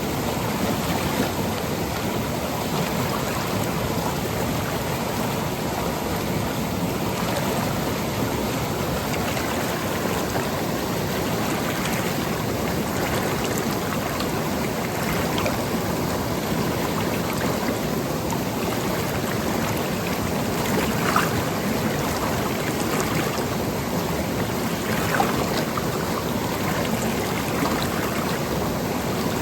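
Seasonal monsoon stream flowing steadily over rocks and pebbles, a continuous rush of water with a couple of brief louder splashes past the middle.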